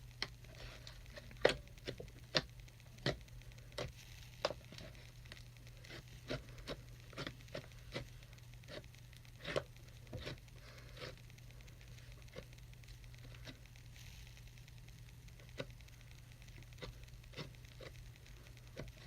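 Clear-glue glitter slime being squeezed and stretched by hand, giving irregular sticky clicks and small air-bubble pops, a few a second, over a steady low hum.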